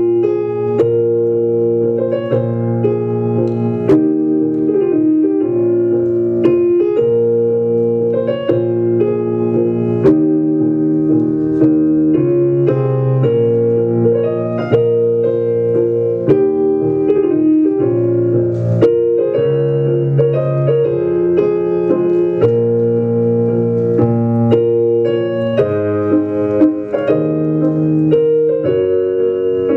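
Waltz music played on piano: a melody over steady chords.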